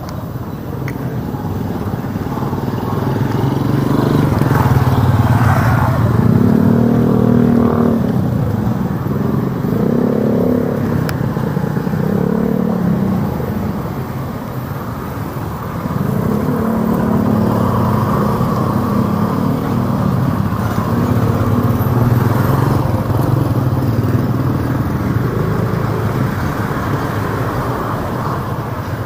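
Street traffic with motorcycles passing close by, engines swelling and changing pitch as each goes past, with the loudest passes about a fifth of the way in and again past the middle.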